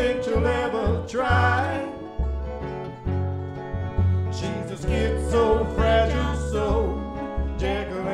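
Country-style background music with acoustic guitar and bass.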